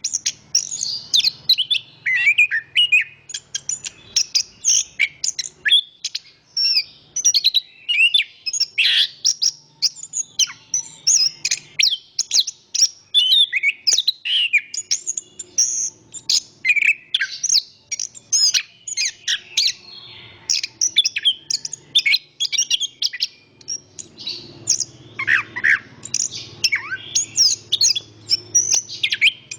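Chestnut-capped thrush (anis kembang) singing a dense, continuous run of short, varied high chirps and whistles. A faint low rumble of wind sits behind it and grows a little stronger near the end.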